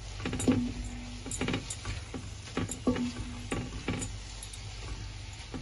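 Spatula stirring and scraping a thick curry masala in a non-stick frying pan: a series of irregular scrapes and knocks against the pan, with a faint sizzle of the frying spices underneath.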